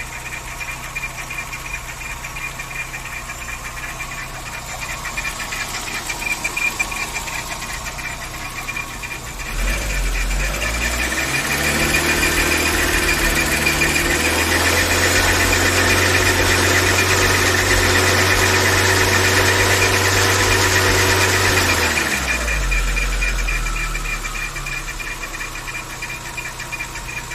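Volkswagen AP 1.6 four-cylinder engine running with a loud abnormal noise, which the owner suspects comes from the timing belt or a pulley. The engine idles, is revved up about ten seconds in and held, then drops back to idle about twelve seconds later.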